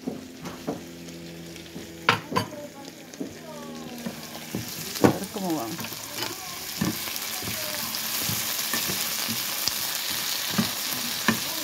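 Diced potatoes frying in oil in a pan, a steady sizzle that builds up after about four seconds, with a utensil stirring them against the pan. A few sharp knocks and clatters sound in the first five seconds.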